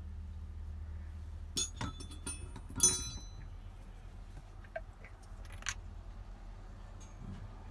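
Small metal objects clinking: a quick cluster of sharp clinks about one and a half to three seconds in, and one more clink near the end, over a steady low hum.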